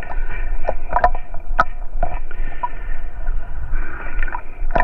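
Shallow lake water sloshing and swirling as a metal-detecting sand scoop is worked through it, with a few sharp clicks and knocks.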